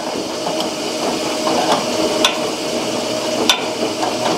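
A wrench turning a lock nut off a washer trunnion bolt, giving a few sharp metal clicks at uneven intervals, over the steady hum of a neighbouring washing machine running.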